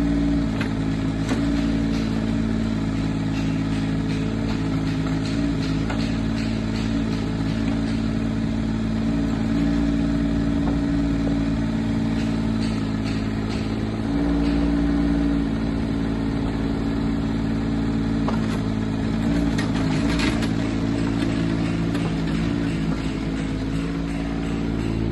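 Kubota K008-3 mini excavator's small three-cylinder diesel running steadily, its note shifting a few times. Scattered clicks and knocks come through, with a brief cluster of them about twenty seconds in.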